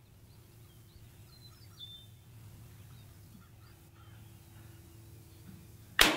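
Faint bird chirps over a quiet range, then near the end a single shot from a Mosin M91/30 PEM sniper rifle fired through a Bramit suppressor, sharp and loud and trailing into a ringing echo.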